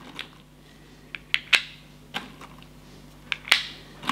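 Lead pellets being picked from a metal tin and pressed one by one into an FX Sideshot rotary air-rifle magazine, with the magazine indexing round: a string of sharp little metallic clicks, several coming close together.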